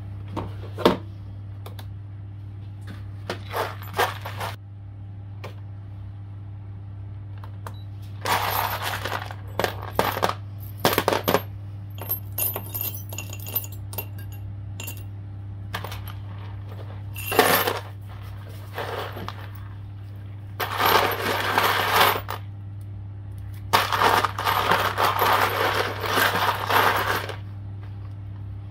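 Small metal pieces clinking and jingling, first a few separate clicks, then repeated clattering bursts of a second or two as handfuls are handled or tipped. A steady low hum runs underneath.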